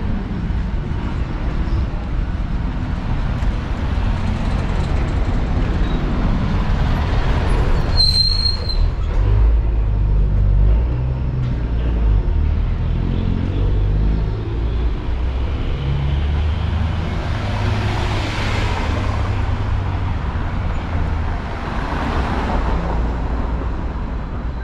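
City street traffic with a large vehicle's engine running close by, heaviest in the middle. A brief high squeal comes about a third of the way in, and two hissing swells come near the end.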